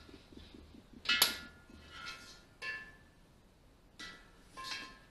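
Metal air-hose fittings and couplers clinking as the hoses are handled and connected to a steel gas bottle: about five short, sharp metallic clicks that each ring briefly, the loudest about a second in.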